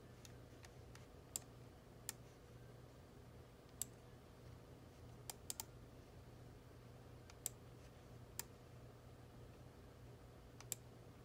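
Faint computer mouse clicks, about ten spread over ten seconds, with a quick cluster of three near the middle, over a faint steady hum.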